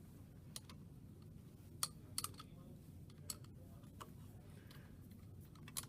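Scattered light metallic clicks and taps of a 1/4 inch wrench working hex standoffs loose from a pump motor mount, irregularly spaced, with a sharper pair about two seconds in.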